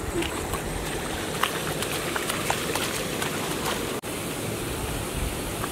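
Steady rushing outdoor noise with scattered small splashes and taps, as feet wade through shallow muddy water. The sound drops out for an instant about four seconds in.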